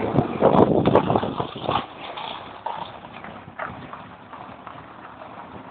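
Classic Mini 1000 on the move: loud, irregular knocks and rattles over a low engine hum for the first couple of seconds, then quieter uneven rattling.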